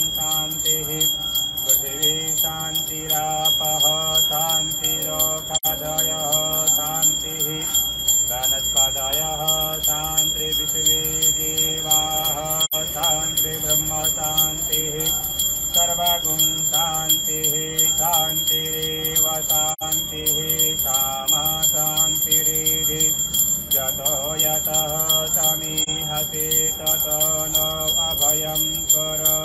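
Devotional music: a wavering melody over a steady low drone, with bells ringing throughout.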